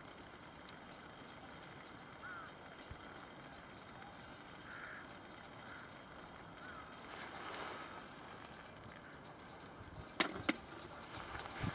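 Wood fire burning in a small wood stove, with a steady hiss and a few faint crackles, then two sharp pops close together near the end.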